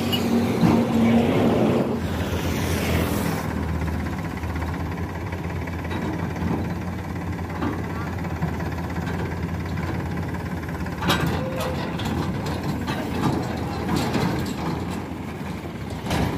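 Powertrac Euro 50 tractor's three-cylinder diesel engine running steadily under load as it pulls a two-axle trolley up a dirt slope. There are a few short knocks about eleven seconds in.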